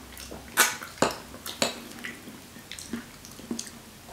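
Eating sounds at a table: a few sharp clicks and taps of forks on plates and wet mouth sounds from eating soft, just-thawed durian, the three clearest in the first two seconds and fainter ones after.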